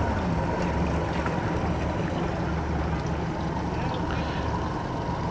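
Outboard boat motor idling with a steady low hum.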